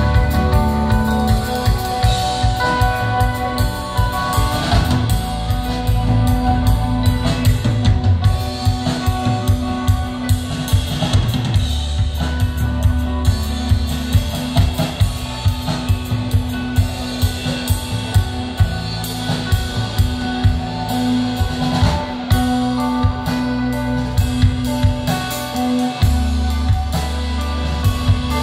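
An instrumental ambient rock trio playing live: a drum kit beats out rapid, steady strikes over sustained low notes and ringing electric guitar. The low notes shift twice, once midway and once near the end.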